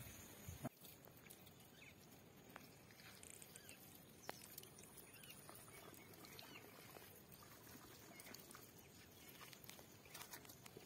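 Near silence: faint outdoor background with scattered light ticks, and a single short sharp knock just under a second in.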